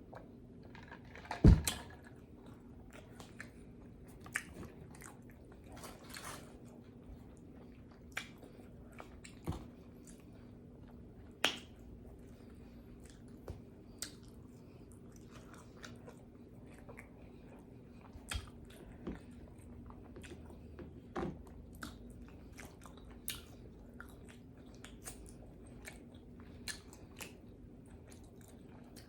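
Close-miked chewing and lip-smacking while eating pizza: a run of short wet mouth clicks, with one loud thump about a second and a half in.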